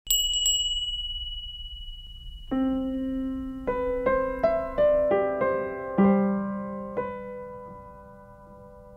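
Slow, gentle piano music. A single high ringing tone opens it, then from about two and a half seconds in, notes and chords are struck every half second or so and left to ring, the last one fading away near the end.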